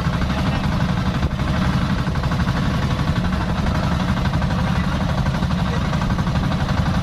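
Engine of an outrigger boat running steadily, a constant low drone with no change in speed.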